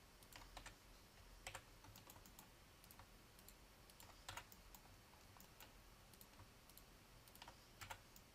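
Faint, scattered clicks of computer keyboard keys and mouse buttons, a few seconds apart, over near silence.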